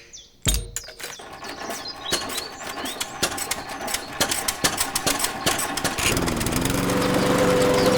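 A run of clicks and knocks, then about six seconds in a small engine starts and settles into a steady run.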